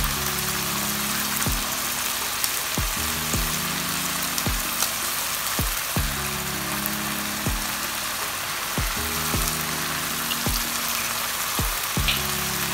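Spiced potato, pea and tomato masala sizzling steadily in a frying pan as raw eggs are added, with background music carrying a slow, steady beat.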